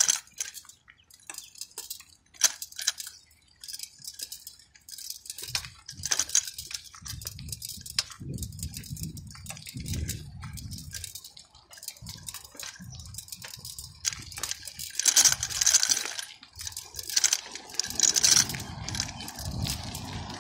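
Footsteps crunching on dirt and loose grit, with clicks and rubbing of a handheld phone against its microphone. A steady hum of traffic rises near the end.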